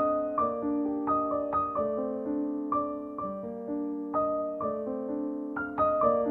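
Background piano music: a gentle melody of struck notes, about two a second, each ringing and fading.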